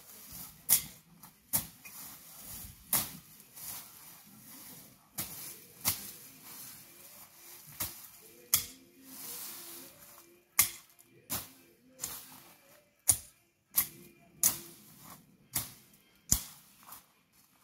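Dry grass and plant stalks crackling and snapping as they are pulled up and gathered by hand, a dozen or more sharp snaps at irregular intervals over a soft rustling.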